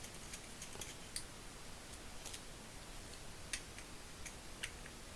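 Faint, irregular light clicks and ticks of a Torx driver and small metal parts being handled as a ratchet's cover-plate screws are taken out.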